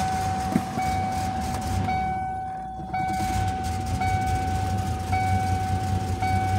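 1993 Ford Explorer's 4.0 L Cologne V6 idling low with the throttle held open by hand; it dies without gas, runs rich, and the owner suspects a faulty mass airflow sensor. Over it, a steady in-cab warning tone, broken about once a second, is the loudest sound.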